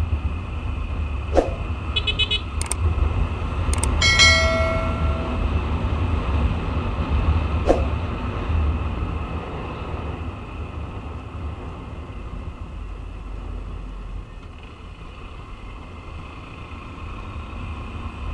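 Wind rumbling on the microphone of a camera riding on a Honda CRF150L dirt bike, with the bike's single-cylinder four-stroke engine running underneath. A short horn-like tone sounds about four seconds in, and the rumble eases towards the end.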